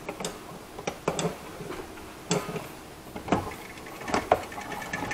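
Sharp metallic clicks and clacks, about eight of them at irregular intervals, as the lever handles of an old ship's wall-mounted bridge signal box are worked by hand.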